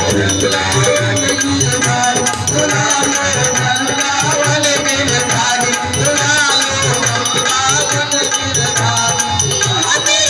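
Live Hindi devotional bhajan: a woman singing into a microphone over an electronic keyboard, with a naal drum beating a steady rhythm and a jingling rattle-type hand percussion keeping time.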